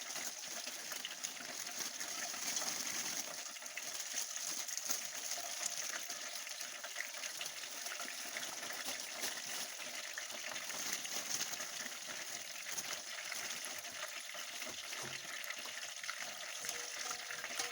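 Garlic frying in hot oil and butter in a pan, a steady sizzle with fine crackling.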